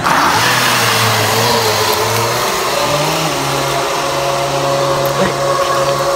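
Background music: held synth tones over a slow bass line that steps between a few pitches.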